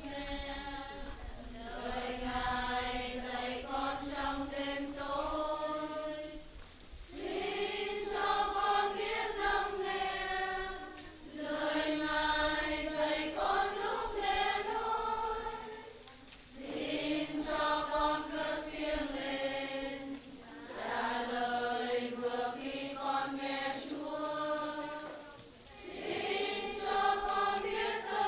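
Church choir singing a hymn in sustained sung phrases of about four to five seconds each, with short breaks between them.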